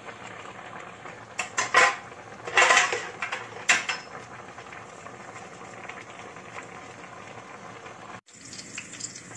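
Vegetables simmering in a steel pot, with a few loud metal clinks and clatters against the pot between about one and a half and four seconds in.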